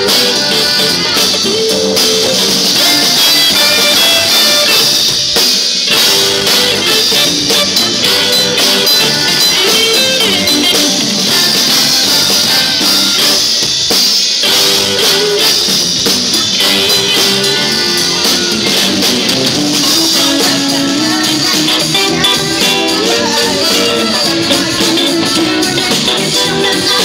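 Live band playing a loud funk groove: drum kit, electric bass and guitar, with a woman's lead vocal coming in near the end.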